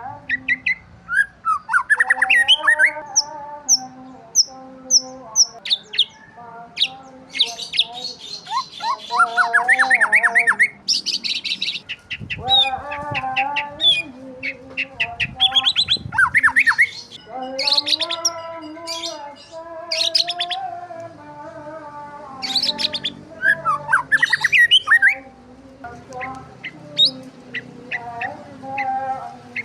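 Several birds chirping and calling at once: quick chirps, fast trills and short rising sweeps, busy throughout, with a lower wavering tone underneath at times.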